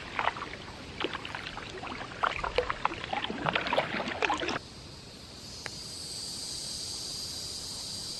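Water splashing with irregular knocks, as from paddling a boat, for about the first half. After a sudden cut, a steady high-pitched hum.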